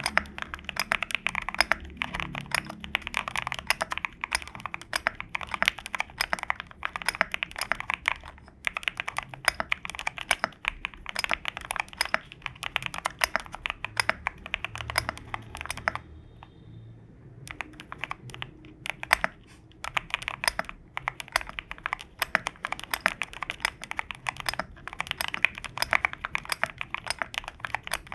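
Continuous fast typing on an Owlab QK65 mechanical keyboard with lubed and filmed Alpaca v2 linear switches on a polycarbonate plate with full foam, giving a rapid stream of keystroke clacks. It pauses briefly a little after 8 seconds and again for about a second and a half around 16 seconds in.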